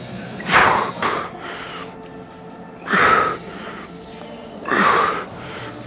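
Forceful exhales through the mouth, one short blast about every two seconds, each pushed out as a rep of a heavy dumbbell bench press is driven up. Background music plays underneath.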